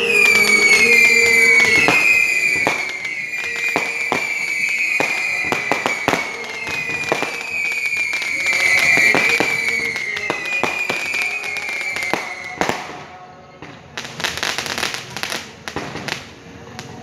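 Fireworks rockets going up one after another, each with a high whistle that falls slowly in pitch, over sharp cracks and pops. The whistling stops about three-quarters of the way through, and a quick run of sharp crackling pops goes on.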